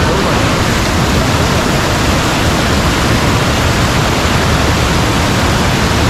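Monsoon-swollen waterfall: a loud, steady rush of falling water.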